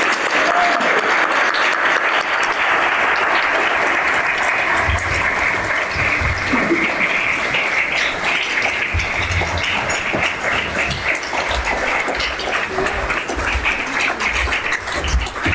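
Audience applauding, a roomful of hands clapping steadily and thinning a little toward the end, with low thumps from about five seconds in.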